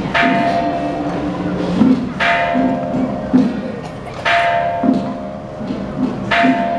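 A metal gong struck four times, about two seconds apart, each stroke ringing on, over men chanting together in a Taiwanese folk-temple 'small dharma' ritual.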